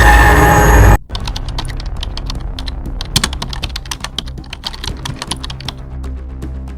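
Loud music cuts off suddenly about a second in, followed by rapid, irregular keyboard-like typing clicks over quieter low background music.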